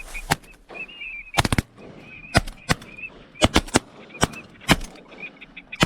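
Shotguns firing a rapid, irregular volley of about a dozen shots, several in quick pairs and triples, at ducks. Ducks are calling faintly between the shots.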